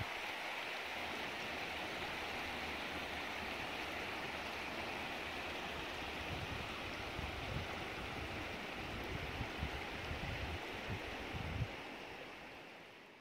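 Shallow mountain river rushing steadily over stones. A few low bumps come in the second half, and the sound fades out near the end.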